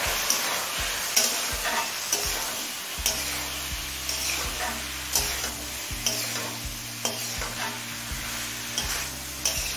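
Potatoes, pointed gourd and chicken being stirred in a kadai of sizzling masala. The scraping strokes come about twice a second. A low steady hum joins about three seconds in.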